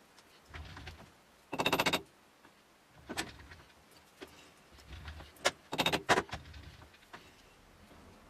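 Clinks, clunks and short rattles of metal as the jaws of a four-jaw lathe chuck are adjusted with the chuck key to centre the workpiece. There is a burst of rapid ratchety clicking about two seconds in and another cluster of clicks around six seconds, with dull knocks in between.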